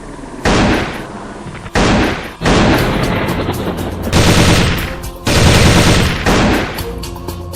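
About five heavy bursts of gunfire-like sound effects, each dying away over a second or so, with background music underneath.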